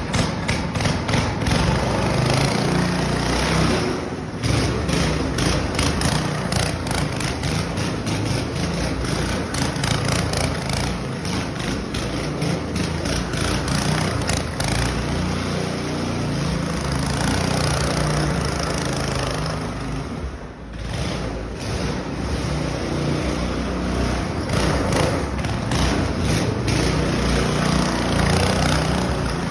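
Small petrol engine of an off-road go-kart running, its level dipping briefly twice.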